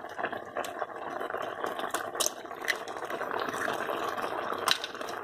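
Thick chicken and creamed-corn sauce simmering in a wok: a steady crackle of bubbles with scattered sharp pops, one louder near the end.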